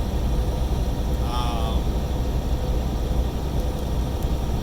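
Steady low rumble of a semi-truck's engine and road noise heard inside the cab while driving on the highway, with a faint steady hum over it.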